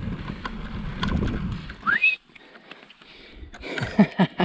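Mountain bike rolling over a grassy track, a low rumble of tyres and wind that cuts off about two seconds in as the bike stops. Just as it stops there is a short rising whistle.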